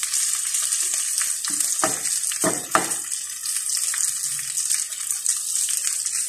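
Marinated chicken breast pieces frying in oil in a cast-iron skillet, a steady high sizzle, with a few sharp clicks about two to three seconds in. The chicken is cooked through.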